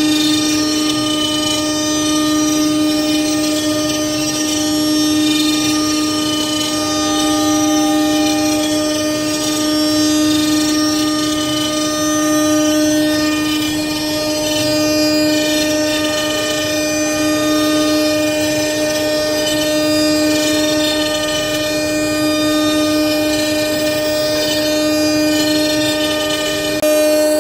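CNC router spindle running at 18,000 rpm with a steady high whine while it mills a wooden workpiece on the rotary axis. The level swells and eases every two to three seconds.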